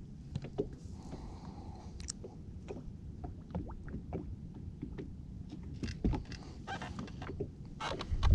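Steady low wind-and-water rumble aboard a small fishing boat, with scattered small ticks and knocks from handling the rod and gear, and a brief louder noise near the end.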